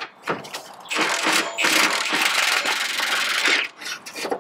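Milwaukee cordless power tool running in one continuous burst of about two and a half seconds, loosening the last 14 mm bolt of the front bumper support bar, with a few short clicks before it.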